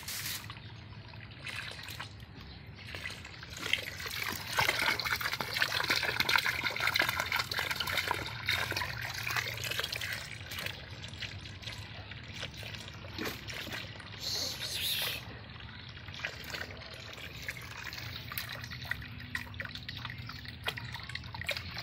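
Water trickling and splashing from a wet fish net full of tilapia as it is handled, then a hand moving in pond water. Many small splashes and clicks, busiest and loudest about four to nine seconds in.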